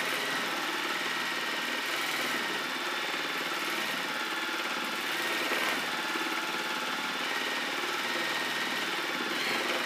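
Juki straight-stitch sewing machine running steadily at high speed, its needle stitching rapidly while fabric is moved by hand for free-motion embroidery.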